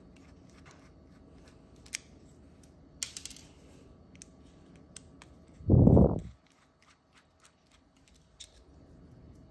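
Small clicks and scrapes of a precision screwdriver turning screws in the Nest Cam camera module's metal bracket, with one short dull thump about six seconds in.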